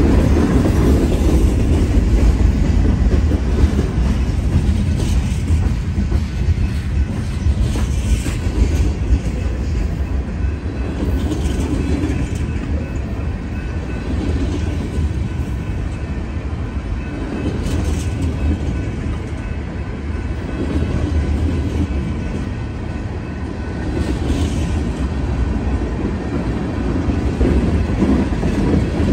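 Freight train of covered hoppers and tank cars rolling past close by: a steady low rumble of steel wheels on the rails, with a few faint clanks as the cars go by.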